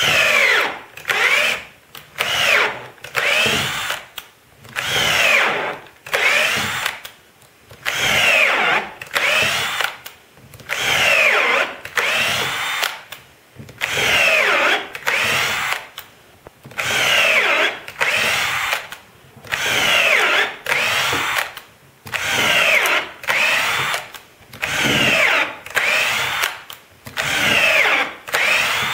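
Drill driving a screw into hard maple in short repeated trigger bursts, about one every second and a half, the motor pitch falling under load in each burst.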